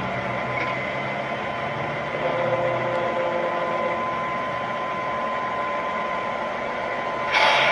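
MTH model BNSF diesel locomotive running along three-rail track: a steady mechanical rumble with a constant hum. Near the end its horn starts, a sudden loud blast.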